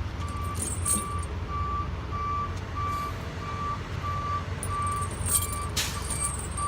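Semi truck idling with a steady low rumble while an electronic beeper repeats about one and a half times a second. A couple of light metallic clinks of tire chain being handled come about five seconds in.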